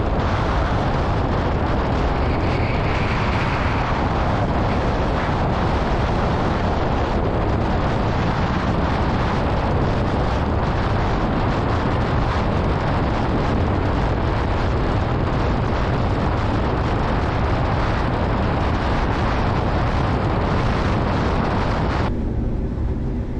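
Wind buffeting the onboard camera's microphone on the Horonuku land yacht at about 200 km/h, a loud, steady rush of noise. Near the end the higher part of the noise drops away, leaving a low rumble that fades.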